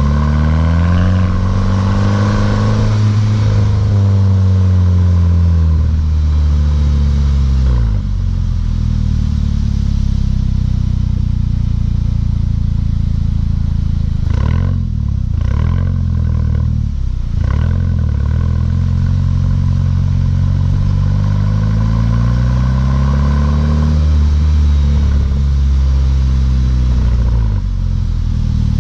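Mk6 Volkswagen GTI's turbocharged four-cylinder engine through a Beluga aftermarket exhaust, pulling with its pitch rising and then falling. A few brief dips break it around the middle, then it climbs and drops again near the end.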